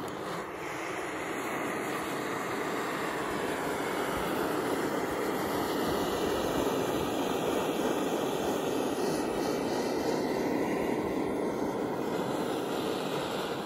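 Handheld butane gas torch burning with a steady rush of flame while it is passed over a tortilla to toast and char it.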